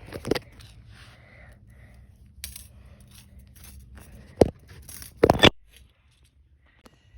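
Small clicks and scrapes of a pair of eyeglasses being handled and bent apart by hand. There is a sharp click about four and a half seconds in and a louder short scrape just after five seconds.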